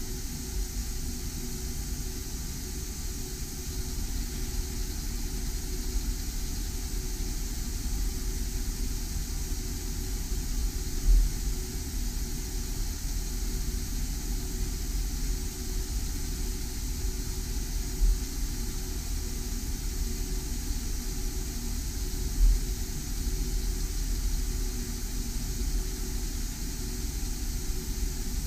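Laser engraver running as it engraves a glass turned on its rotary attachment: a steady machine whir and hum with hiss, broken by a few short low thumps.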